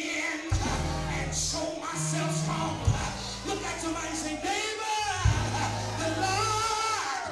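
Live gospel praise music: a singer on a microphone over long held bass notes, with a drum hit roughly every two and a half seconds.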